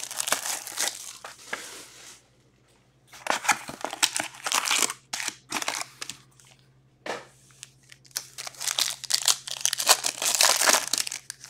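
Packaging of a hockey card box and its foil packs crinkling and tearing as the box is opened and the packs are ripped open, in bursts with short pauses.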